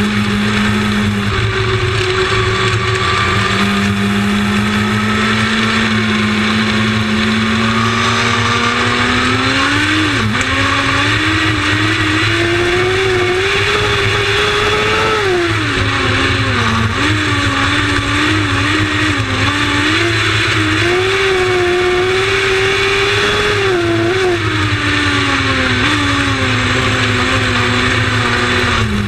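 Lightning sprint race car engines running, the main engine note holding steady, then climbing, dropping and rising again as the cars accelerate and lift off the throttle, before falling away near the end.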